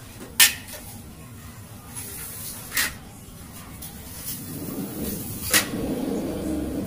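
Three sharp clicks or knocks from an aluminium sliding door frame being handled: the loudest about half a second in, another near three seconds, the last about five and a half seconds in. A low, muddled noise builds during the last two seconds.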